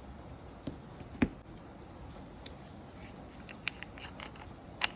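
Scattered light clicks and taps of a metal nail-stamping plate and polish bottles being handled on a desk, one sharper tick a little over a second in, over a steady hiss of heavy rain.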